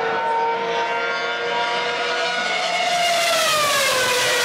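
Open-wheel race car engine passing at speed, a high-pitched note that holds, rises a little, then drops in pitch from about three seconds in as the car goes by: the Doppler shift of a passing vehicle.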